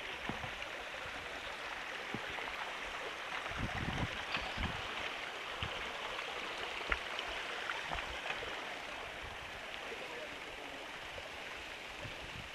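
Small stream rushing over rocks, a steady water noise, with a few low thumps about four seconds in and again near seven seconds.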